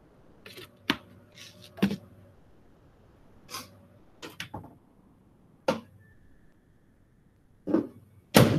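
Scattered short knocks and clatters of kitchen things being handled and set down, with quiet room tone between them; the sharpest knock comes near the end.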